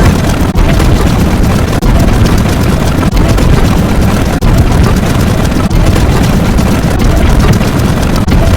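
Loud, dense rumbling noise like a heavy engine, heaviest in the low end, broken by short dips about every 1.3 seconds.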